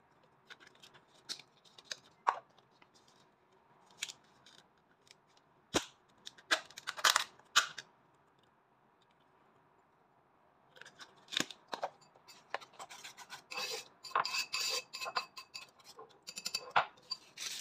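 Scattered clicks and taps as chopped greens are tipped from plastic tubs into a bowl of beaten egg. After a pause of a few seconds, a wire whisk beats the egg mixture in the bowl, a dense run of quick clinks and scraping.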